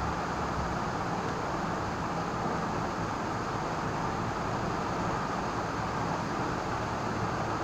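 Steady, even background rumble and hiss with no distinct events.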